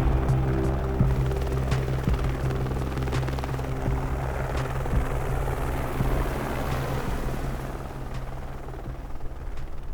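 Helicopter in flight, its rotor chopping steadily, under background music, the whole fading down toward the end.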